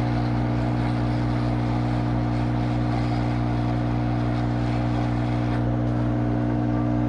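Hot air rework station blowing steadily, its airflow turned down to 5.5: a constant fan hum with a hiss of air.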